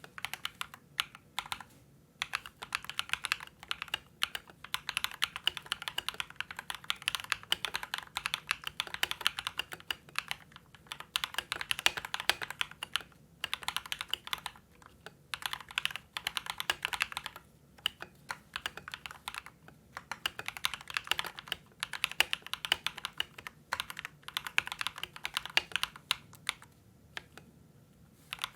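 Typing on an LK67 mechanical keyboard fitted with lubed Akko Rose Red linear switches and dampened with the tape mod, case foam and lubed stabilizers. Fast runs of keystrokes come in bursts of a few seconds, broken by short pauses.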